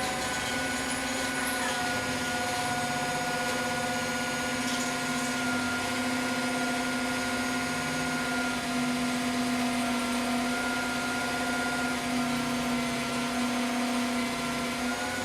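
A motor running steadily at an even pitch, giving a constant hum.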